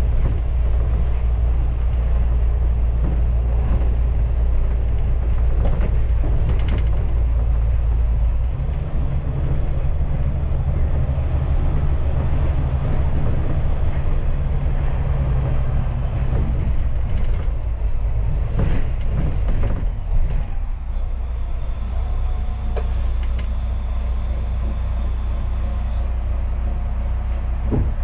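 Inside a moving London double-decker bus: steady low drone of the engine and the rumble of the ride, with creaks and rattles from the bodywork. The engine note changes about a third of the way in, and a brief high squeal comes about three quarters through.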